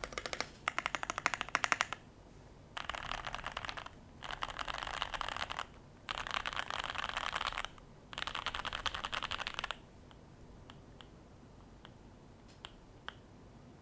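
Typing on a tape-modded Keychron Q1 aluminium mechanical keyboard with lubed and filmed JWK Nylon T1 tactile switches. Rapid keystrokes for about two seconds, then four bursts of fast typing with short pauses between them, then a few single key presses spaced apart near the end.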